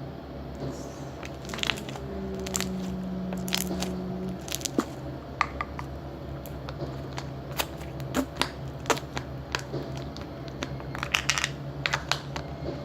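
Hands squeezing and stretching homemade slime, giving irregular sticky clicks and small pops.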